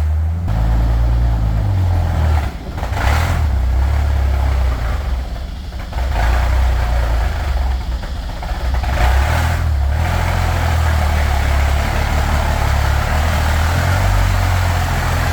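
Bombardier snow bus engine running loud and low as the machine is driven off under power, its note rising and falling a few times as the throttle is worked.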